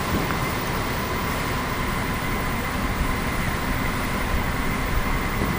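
A steady, unchanging machine hum and rush with a thin high whine in it.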